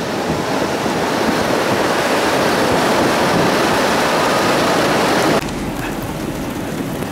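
Steady rushing wind and road noise from the moving storm-chase vehicle, building a little, then dropping suddenly to a quieter rush about five seconds in.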